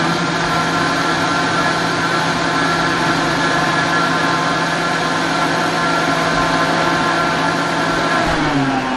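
Vitamix blender motor running steadily at high speed, churning cream that is breaking into butter and buttermilk. Near the end the motor slows and its pitch falls as the speed is turned down.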